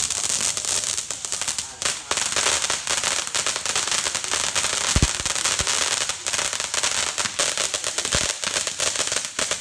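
Fireworks and firecrackers going off in a dense run of crackles and pops, with two deeper bangs, one about halfway through and one near the end.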